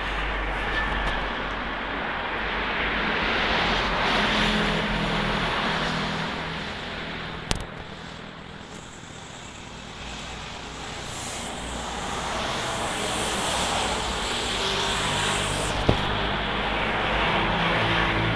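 Strong storm wind rushing in gusts, swelling and easing with a lull in the middle. Two sharp knocks come through it, one about halfway in and one near the end.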